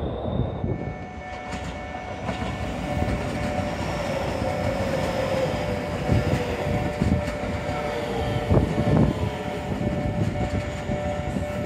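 Keio electric commuter train running past at close range: steady wheel and running noise with the whine of the traction motors, one tone falling slowly, and a few low wheel thumps over the rail joints.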